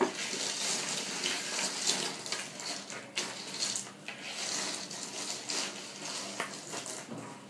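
Small hard plastic toy animal figures being swept, shuffled and slid across a tabletop by hand: a continuous rustling with many light clicks as the pieces knock together.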